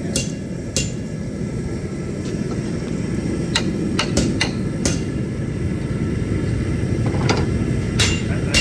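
Hammer striking steel at the anvil: about ten irregular blows, each with a short metallic ring, over a steady low rumble.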